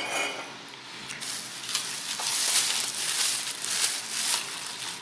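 Crinkling, rustling handling noise, like packaging being moved about. It starts about a second in and lasts about three seconds.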